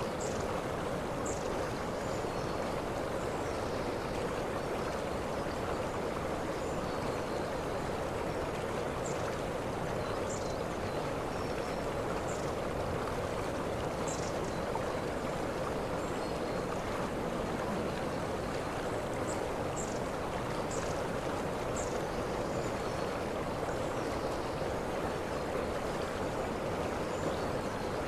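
Waterfall: a steady, even rush of falling water, with brief faint high chirps now and then.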